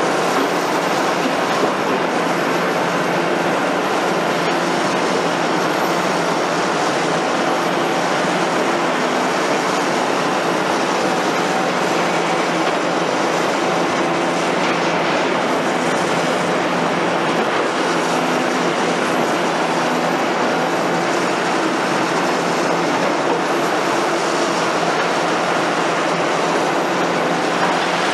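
Liebherr R960 demolition excavator's 250 kW diesel engine running steadily under hydraulic load as its demolition attachment breaks and moves concrete rubble.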